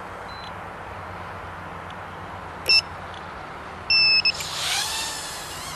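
Tinyhawk 2 tiny-whoop FPV drone starting up: two high piezo-buzzer beeps, the second longer, then its motors spin up with a rising whine about four seconds in, over a steady hiss.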